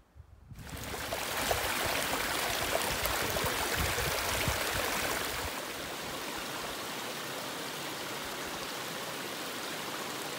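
Small mountain creek running over rocks, a steady rush of water that comes in about half a second in.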